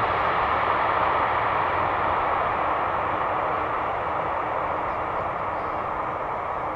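Jet airliner landing: a steady rushing engine noise that slowly fades.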